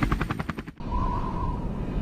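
Helicopter rotor sound effect, a rapid chopping of about eight beats a second, that cuts off suddenly about three-quarters of a second in. A lower rumble with a faint wavering tone follows.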